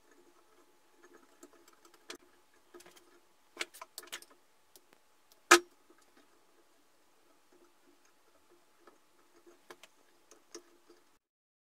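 Small clicks, taps and rustles of hands working with wiring and small plastic parts on a neon sign's metal frame, with one sharp, much louder click about halfway through.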